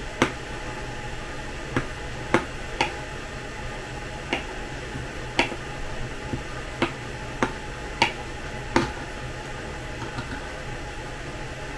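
About a dozen light, sharp clicks and taps at uneven intervals, over a steady low hum.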